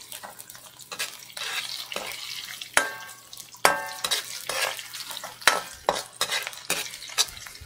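Metal ladle scraping and clanking against an aluminium wok as onion and garlic are stirred and sizzle in a little hot oil: sautéing the aromatics at the start of the dish. The stirring is irregular, with a few sharp clanks that ring briefly.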